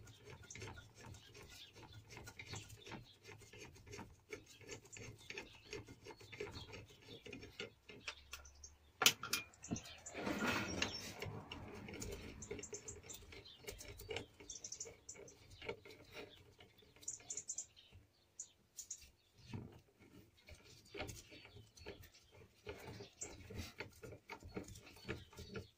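Small clicks, knocks and scraping of metal lathe parts being unbolted and handled while a mini lathe's carriage and cross-slide are dismantled. A sharp knock about nine seconds in is followed by a couple of seconds of scraping.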